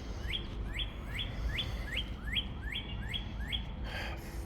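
A songbird singing a quick run of repeated, alike downslurred notes, about three a second, stopping shortly before the end.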